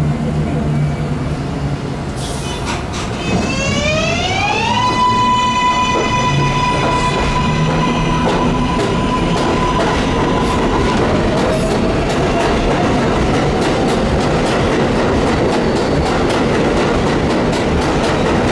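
R188 subway train accelerating: the propulsion whine rises in pitch over about a second and a half, holds a steady tone for several seconds, then a fainter whine climbs slowly. Underneath are running rumble and wheels clicking over rail joints.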